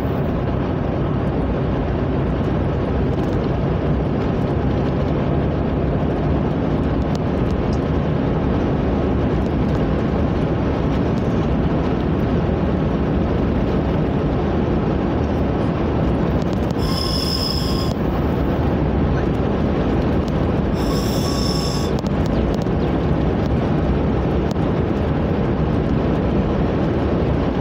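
Steady engine and tyre noise of a vehicle driving along a paved road, heard from inside the cabin. Two brief high-pitched sounds cut through, about seventeen and twenty-one seconds in.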